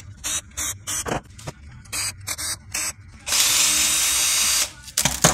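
Cordless drill-driver backing screws out of a small plastic inverter part: a string of short trigger blips over the first three seconds, then one steady, louder run of about a second and a half.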